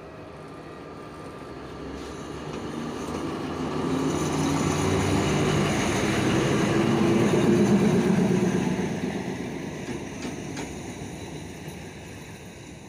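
Diesel locomotive of a freight train passing close by, its engine hum swelling to a peak about eight seconds in and then fading as it goes past. A few sharp wheel clicks over the rail joints come near the end.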